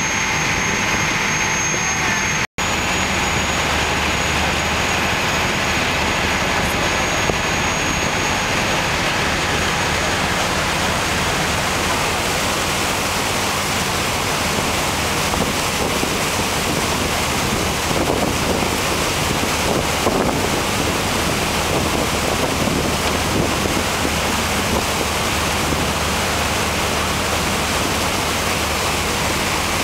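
Steady rush of wind on the microphone and water noise on the open deck of a moving boat, with the low drone of the boat's engine underneath. The sound cuts out for an instant about two and a half seconds in.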